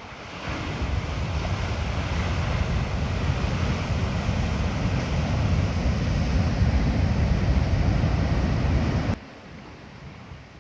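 Wind buffeting the microphone over the wash of ocean surf, a heavy low rumble that builds about half a second in and stops abruptly near the end.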